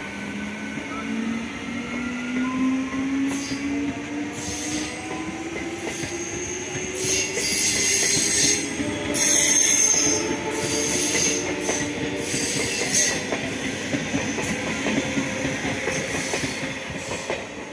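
Eastern Railway electric multiple-unit local train pulling away, its motor whine rising steadily in pitch as it gathers speed. The wheels squeal and hiss in bursts through the middle, loudest about ten seconds in, before the sound fades as the train recedes.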